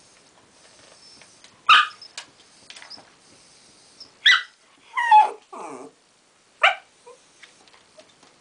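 A West Highland White Terrier barking in short, sharp barks, about four spread over several seconds, with two close together in the middle and a lower, falling sound just after them. The barks are a frustrated demand for a ball that the other dog is holding.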